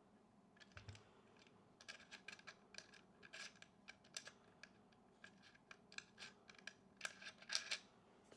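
Faint scratching and irregular small clicks as the light-meter battery cover of a Hanimex Loadmatic M200 Super 8 camera is worked loose without a screwdriver; the clicks come thicker near the end.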